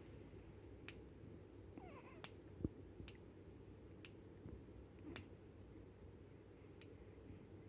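A baby's brief, soft squeaky vocalisation about two seconds in, among several faint sharp clicks.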